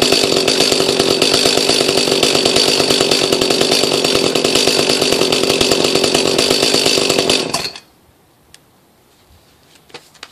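Echo CS-310 chainsaw's two-stroke engine running steadily on its first start after sitting unused all winter, then shut off abruptly about three-quarters of the way through, followed by a few light clicks.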